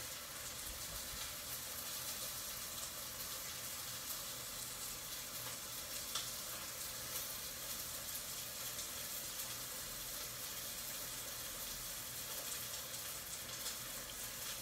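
Steady, even hiss with a few faint light clicks, like a metal spoon touching a ceramic soup bowl.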